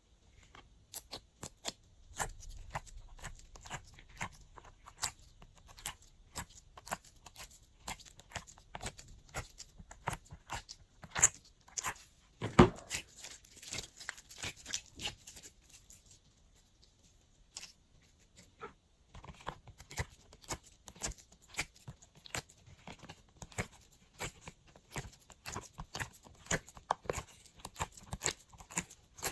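Hands squishing and stretching glossy slime, a quick irregular run of sticky clicks and pops, with one louder thump about halfway through and a brief lull a little after it.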